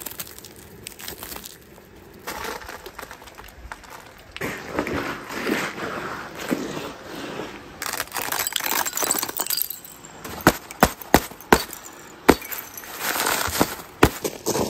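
Freezing-rain ice being crunched and broken by hand: a crackling crunch as ice-coated grass blades are rubbed, then several sharp clinks and cracks about ten seconds in as icicles and an ice crust are snapped off a chair cushion.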